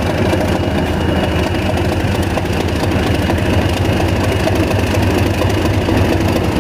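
Class 37 diesel locomotive D6737's English Electric V12 engine running steadily as the locomotive draws slowly past with its train of coaches.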